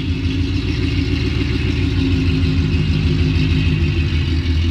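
2018 Ford Mustang GT's 5.0-litre V8 exhaust rumbling steadily at a low idle as the car reverses slowly.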